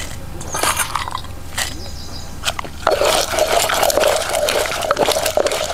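Garlic cloves in a stone mortar (rolu): a few light clicks as the cloves go in and are handled, then about three seconds in, a dense wet crackling and squishing as the cloves are crushed against the stone.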